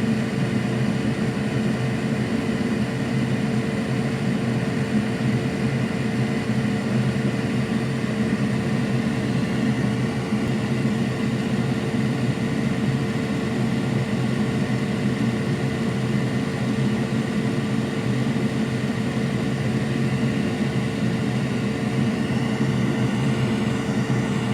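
Steady whir of an electric blower fan with a constant hum, unchanging throughout.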